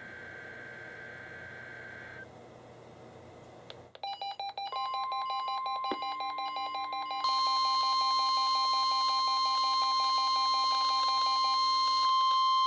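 Several NOAA weather radios set off by the required weekly test: about four seconds in, rapid pulsing alert beeps start, joined by the steady 1050 Hz warning alarm tone and more radios' alert tones, stacking into a loud, continuous mix of beeps and tones. Before that, only faint radio hiss with a thin steady tone.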